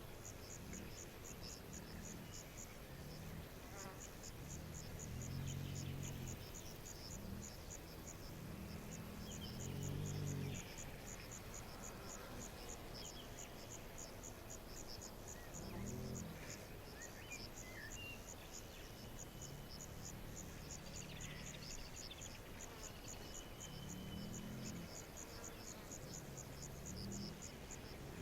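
Crickets chirping in a fast, steady, high-pitched pulse, with a few louder, low, deep calls breaking in about five, ten, sixteen, twenty-four and twenty-seven seconds in.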